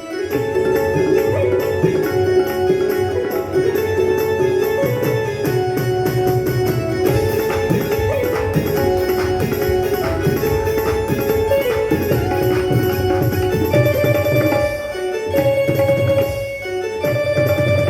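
Indian instrumental music: tabla-style drumming under a sustained, gently bending melody line, with a couple of brief pauses near the end.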